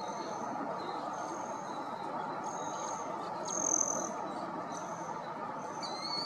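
Small birds giving short, high, thin whistled notes, about six of them spaced roughly a second apart, over a steady rushing background noise.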